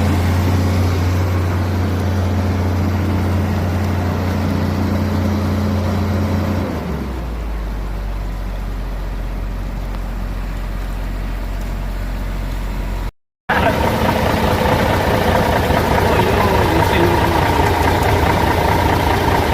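A heavy diesel engine of a lorry or excavator runs steadily and drops to a lower, deeper speed about seven seconds in. After a brief break near the middle, a busier engine sound follows, with voices.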